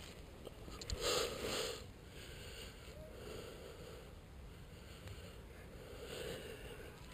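Close breathing and sniffing next to the microphone, in short breaths every couple of seconds, with a louder rustle about a second in.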